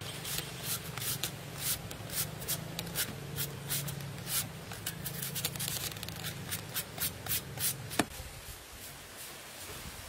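A knife peeling the skin off a green mango in short, repeated scraping strokes, two or three a second, with a sharp click about eight seconds in.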